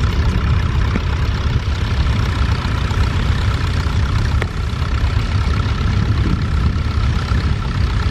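Wind buffeting the camera's microphone, a heavy, fluttering low rumble, with a tractor engine running steadily underneath.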